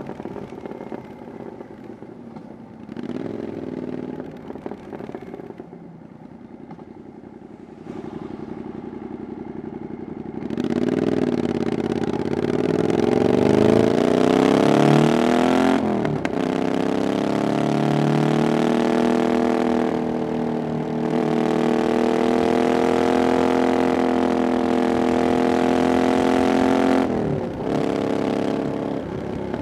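Triumph Bonneville Scrambler 900's 900cc parallel-twin engine through an aftermarket 'VW pipes' exhaust, ridden. It runs quietly at low revs for the first ten seconds, then the revs climb as the bike accelerates. A gear change breaks the note about sixteen seconds in, followed by a steady loud pull at higher revs and a brief dip near the end.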